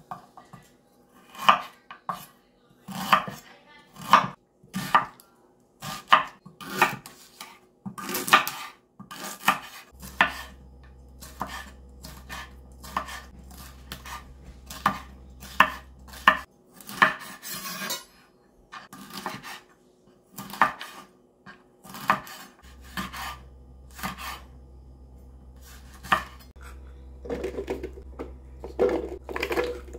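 Chef's knife chopping ginger and green chili on a bamboo cutting board: a run of sharp, irregular knife strikes on the wood. Near the end, softer knocks as cut pieces go into a plastic food processor bowl.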